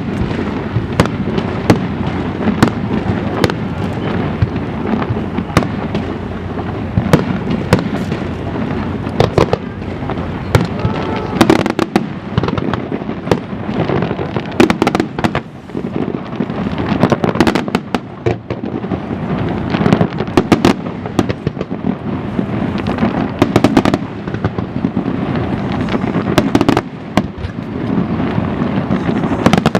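Fireworks display: aerial shells bursting in a rapid, continuous string of sharp bangs over a steady rumble of booming and echoing reports.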